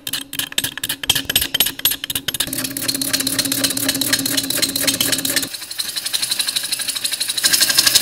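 Wood lathe spinning a wooden bowl blank while a turning gouge cuts into it, making a rapid chattering clatter over a steady motor hum. The hum drops out after about five seconds, and the cutting gets louder and hissier near the end.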